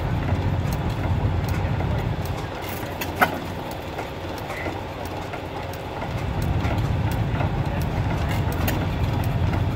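Large vintage hit-and-miss stationary gas engine running: a low, pulsing exhaust beat that eases off about three seconds in and picks up again about six seconds in, as it fires and then coasts on its flywheels. Light clicking runs through it, with one sharp click about three seconds in.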